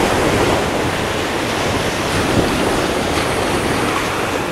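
Steady wash of small sea waves on the beach, with wind on the microphone.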